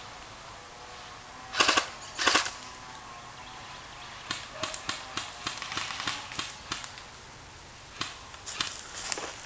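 Airsoft guns firing: two short, loud bursts of rapid shots about a second and a half in, then a scatter of quieter single shots and short strings through the rest.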